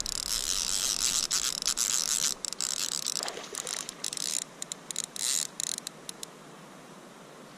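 Fly reel's click-and-pawl drag buzzing as a hooked rainbow trout runs and pulls line off: a fast unbroken buzz for about two seconds, then stop-start bursts of clicks that die away about six seconds in.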